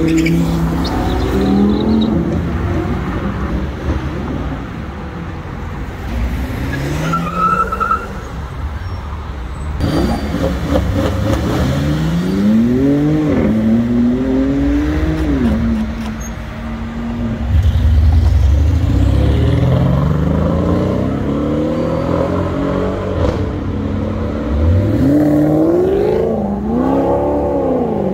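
Car engines and exhausts accelerating hard, several times over. Each engine note climbs in pitch and then drops back at a gear change, with a loud, deep exhaust rumble between the pulls.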